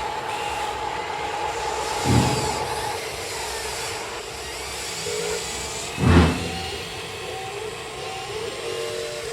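Small electric motors and the hydraulic pump of radio-controlled construction models whining steadily, the whine dropping in pitch about three seconds in, with two heavy thumps, about two and six seconds in.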